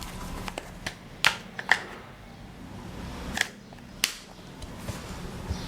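Buttons of an old infrared TV remote control being pressed: about six sharp clicks, four in the first two seconds and two more a little after three seconds in, over a faint low hum.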